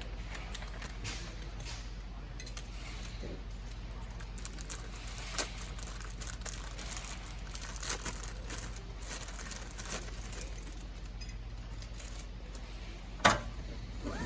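Small metal parts and tools being handled while fitting a seatbelt lock: scattered light clinks and clicks, with one sharp knock about a second before the end, over a faint low hum.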